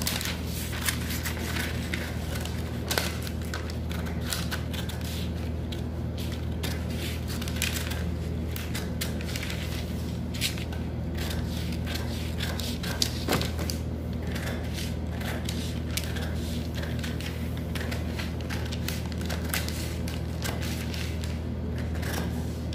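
Scissors cutting through sheets of pattern paper: a string of irregular snips and crinkling paper rustle over a steady low hum.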